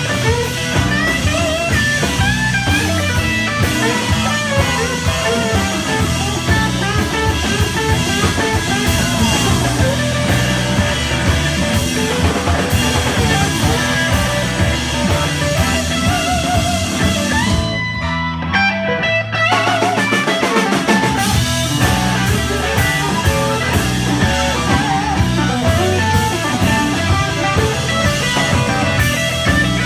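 Live blues-rock band playing an instrumental passage: electric guitar playing lead lines with bent notes over electric bass and a drum kit. About eighteen seconds in the drums and cymbals stop for a second or so, then the full band comes back in.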